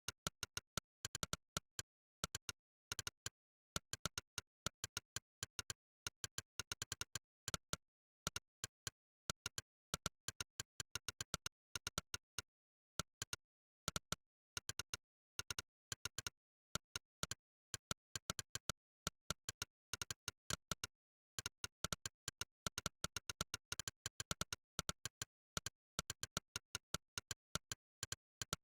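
Monkeytype's "click" keypress sound effect: a quick, uneven stream of sharp clicks, one per keystroke, coming in bursts like typed words, with brief pauses between and dead silence between clicks.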